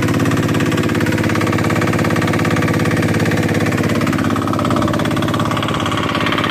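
A fishing boat's engine running steadily, a constant rapid pulsing drone.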